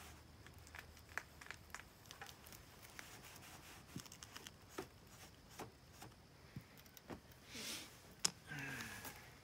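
Quiet handling noises: scattered light clicks and taps, a brief rustle about three-quarters of the way in, and one sharper click just after it.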